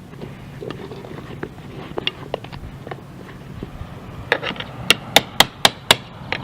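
Sharp knocks on a hard surface: scattered light taps at first, then a regular run of loud strikes about four a second near the end, over a low steady hum.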